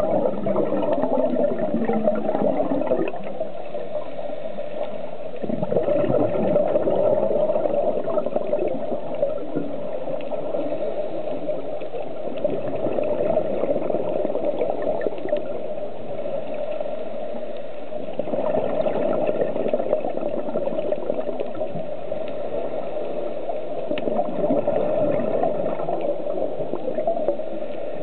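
Scuba diver's regulator breathing underwater: exhaled bubbles gurgling, swelling and easing every few seconds with the breath.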